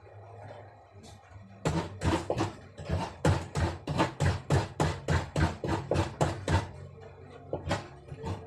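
Coconut half being scraped by hand on a coconut grater: quick, rhythmic rasping strokes, about four a second, starting a little under two seconds in.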